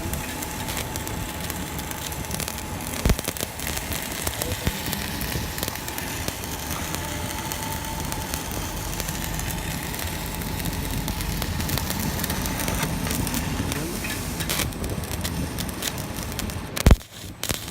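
Stick (MMA) arc welding with a ZX7-200 inverter welder: the arc crackles and spits steadily, with a sharp crack and a brief break in the sound near the end.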